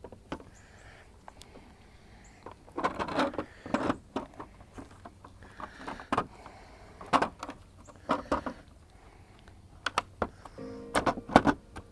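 Batteries, connectors and wiring being handled and seated in a clear plastic dry box: scattered plastic clicks and knocks and short rustling bursts. Music comes in near the end.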